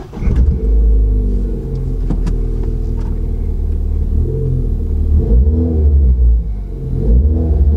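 Ford Fiesta ST's 1.6-litre turbocharged four-cylinder engine starting at once and running steadily, with a few small changes in pitch. It starts and runs normally with a replacement body control module fitted.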